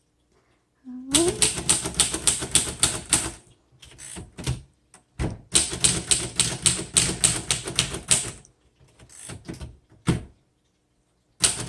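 1936 Royal Model O manual portable typewriter being typed on: fast runs of sharp key-strike clacks, several a second, in two long runs with a few slower, scattered strikes between and after them.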